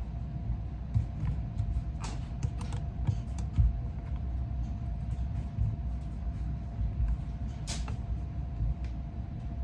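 A few short clicks and light knocks of rifle parts being handled as the Thompson/Center Compass's action is taken out of its composite stock, over a steady low rumble and a faint steady hum.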